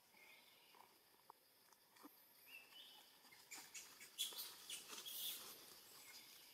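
Quiet forest ambience with a few faint short chirps. From about three and a half seconds in comes a spell of soft rustling and crackling, the loudest part.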